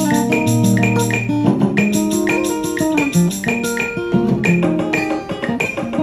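Music: plucked guitar and bass lines with held notes over a steady drum beat.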